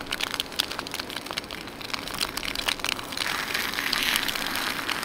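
An egg sizzling and crackling in bacon grease in a small frying pan over a gas canister stove, with a spatula working under the egg. The sizzle grows louder and hissier about three seconds in.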